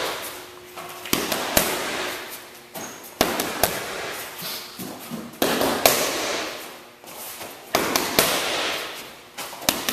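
Boxing gloves smacking focus mitts in quick combinations. The sharp pops come in pairs about half a second apart, a new combination every two seconds or so, each followed by a fading echo.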